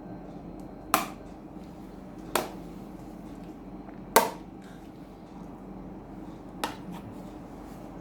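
Fridge magnets clacking onto a refrigerator door four times, a few seconds apart, as game pieces are placed.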